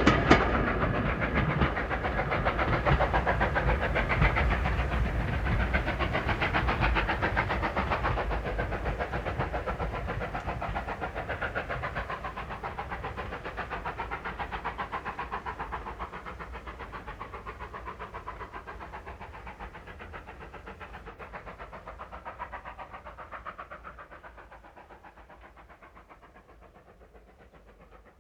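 Steam train running away into the distance, its fast, even beats fading steadily until almost nothing is left.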